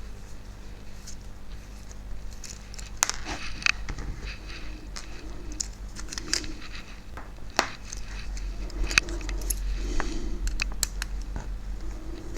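Irregular small clicks and light metal clinks of tiny locomotive parts and small tools being handled on a workbench during dismantling, with a few sharper ticks, over a faint steady low hum.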